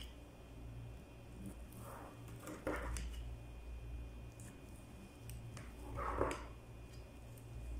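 A kitchen knife scoring a pan of basbousa, the blade scraping through the grainy semolina, with two louder scraping strokes about three and six seconds in, over a low background hum.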